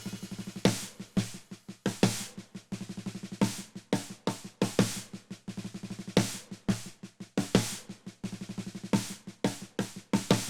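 Percussion break in a Latin music track: rapid, uneven drum and snare hits, several a second, with no bass or guitar underneath.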